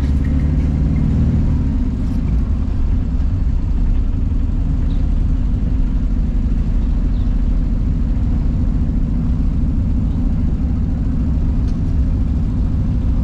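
Motor vehicle running with a steady low rumble, heard while riding along a road.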